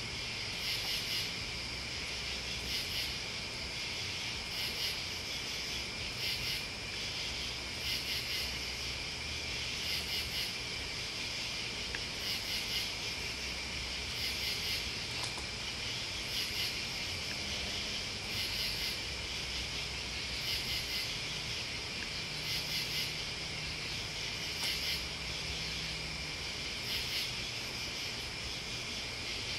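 A chorus of crickets and other night insects chirring steadily, with a louder pulsing call that comes back about every two seconds.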